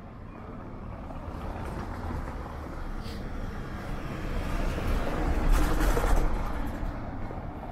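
A motor vehicle passing close by, growing louder to a peak about five to six seconds in, then fading away.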